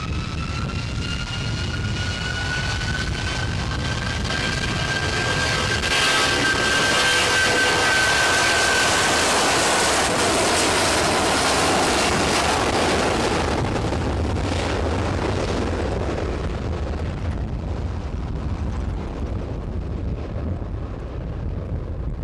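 Boeing 757-200 freighter's Rolls-Royce RB211 turbofans spooling up to takeoff power: a whine rises in pitch over the first few seconds and then holds. The jet noise grows loudest from about six to thirteen seconds in as the aircraft rolls past, then fades as it heads down the runway toward rotation.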